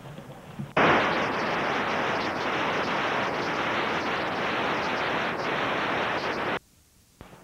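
Loud steady hiss of static from a blank stretch of VHS tape. It starts abruptly about a second in and cuts off sharply near the end.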